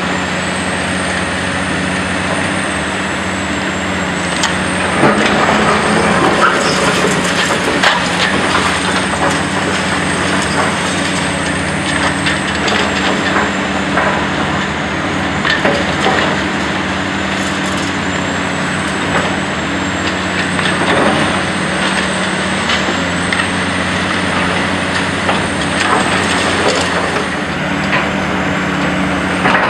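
Caterpillar 345C UHD demolition excavator's C13 diesel engine running steadily under hydraulic load, with a high hydraulic whine that rises and falls as the boom moves. Scattered knocks and clatter from rubble under the bucket and tracks.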